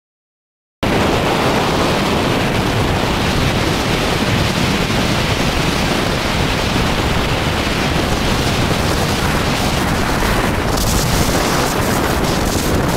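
Wind rushing over the microphone of a camera riding on a moving motorcycle: a loud, even rush of noise that starts abruptly about a second in.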